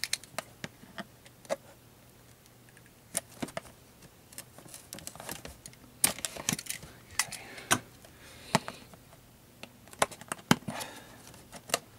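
Utility knife slicing through the seal on a cardboard retail box, with scattered clicks, scrapes and scratches of blade and card, followed by fingers prying at the lid flap.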